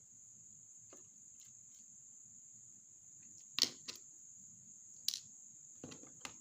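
A few sharp clicks and taps of small tools and parts being handled on a laptop's plastic case, the loudest about three and a half seconds in.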